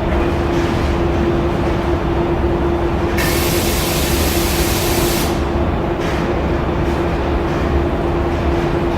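Steady drone of body-shop machinery with a constant hum. About three seconds in, a hiss of compressed air cuts in sharply, lasts about two seconds and stops.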